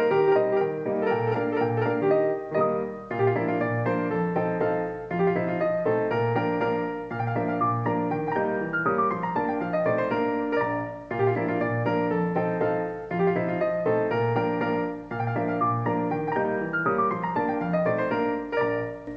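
Background piano music, a flowing piece with quick descending runs of notes.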